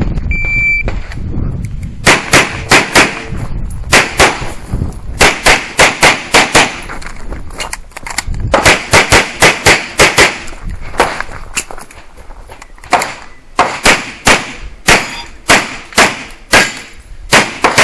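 An electronic shot-timer start beep, then a competitor firing a handgun in fast strings of shots for an IPSC stage, with short pauses between strings.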